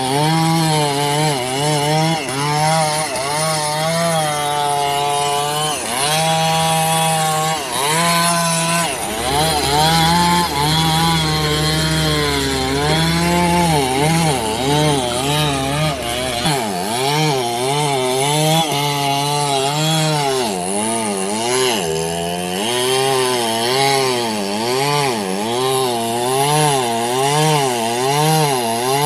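Two-stroke chainsaw cutting through a large cengal hardwood log, its engine pitch dipping and rising about once a second as the saw is worked through the cut. A deeper steady engine hum runs under it for several seconds in the middle.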